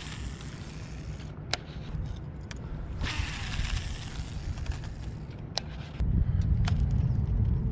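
Baitcasting fishing reel being worked: a whirring hiss of spool and line lasting about two seconds, with a few sharp clicks. About six seconds in, a low rumble comes in suddenly and stays.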